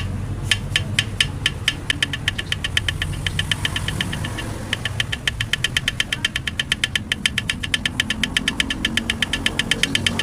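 Toyota 2E four-cylinder engine running with a sharp, rhythmic knock, several strikes a second. The knocking breaks off briefly a little before halfway, then comes back at a quicker pace.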